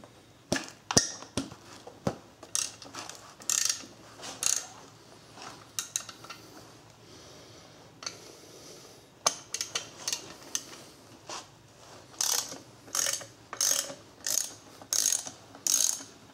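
Hand socket ratchet clicking as it backs out the E10 bolts of a coolant housing. A few scattered strokes come first and a short lull follows. Near the end the strokes settle into a steady rhythm of about one and a half a second.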